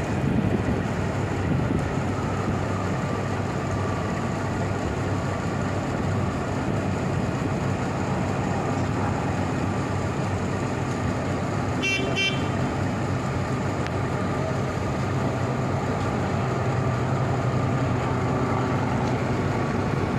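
Boat engines running with a steady low drone. A brief high-pitched beep sounds about halfway through.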